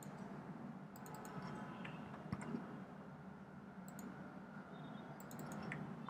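Light clicks of a computer mouse and keyboard while editing code, coming in a few short clusters over a faint steady hum.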